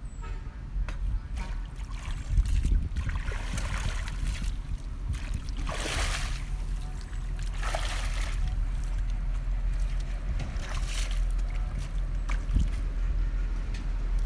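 Water splashing as a person wades through knee-deep river water, with several separate splashing strides, over a steady low rumble.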